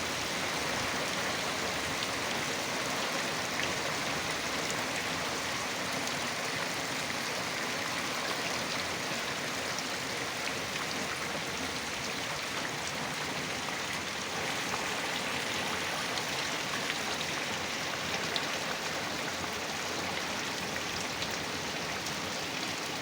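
Heavy rain falling steadily: an even hiss with small scattered drop ticks.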